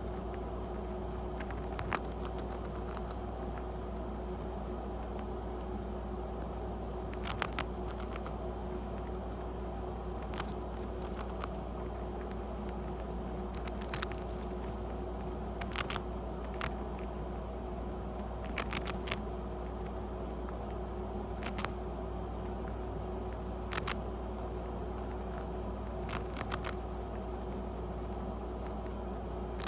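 Pet rat crunching a cracker: short, crisp crunches every few seconds, some in quick doubles or triples, over a steady background hum.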